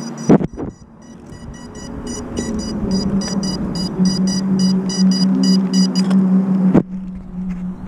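A crashed FPV quadcopter being picked up by hand: knocks from the handling about a third of a second in and again near the end, over a steady low hum and a rapid high-pitched electronic beeping that stops about six seconds in.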